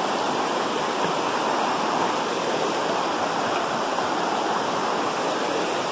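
Steady rush of a river's flowing water, even throughout.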